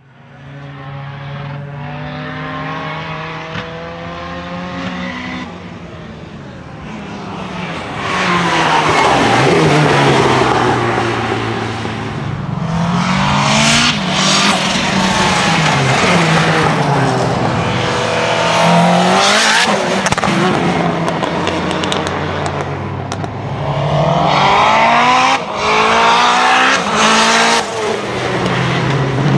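Tuned 500 hp Lancia Delta Integrale 16v's turbocharged 2.0-litre four-cylinder accelerating hard on track. The engine note climbs and drops again and again through gear changes and swells loudly as the car passes. It fades in at the start.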